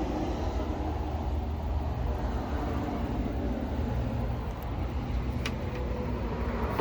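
Singer Model 628 electric sewing machine running steadily, with a couple of light clicks about two-thirds of the way through.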